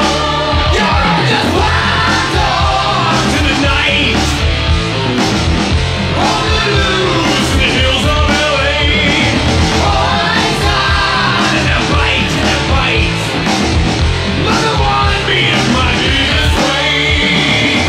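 Hard rock recording playing loud and steady: drums and bass under a lead line that bends up and down in pitch.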